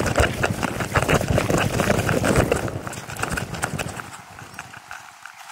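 Close, irregular rustling and knocking of clothing and gear moving against the camera, with a low rumble. It thins out and fades about four seconds in.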